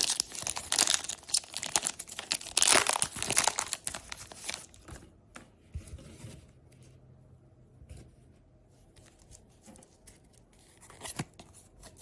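Pokémon booster pack's foil wrapper being torn open and crinkled, busiest in the first four to five seconds, then dying down to a few faint rustles.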